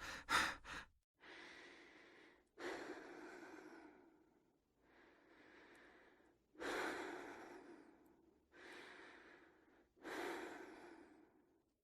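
A person breathing: a few quick panting breaths at the start, then about five slow, faint breaths, each about a second long, with pauses of one to three seconds between them.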